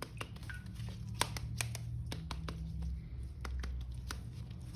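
Scattered light clicks and taps of hands handling a plastic action figure, over a low steady hum.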